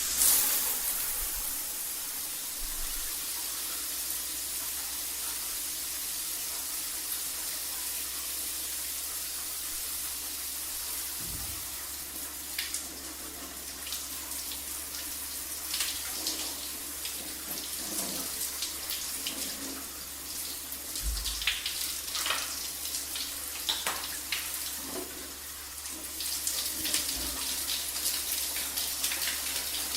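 Shower spray running: a steady hiss of water for the first dozen seconds, then uneven, with frequent short splashes as the falling stream is broken up.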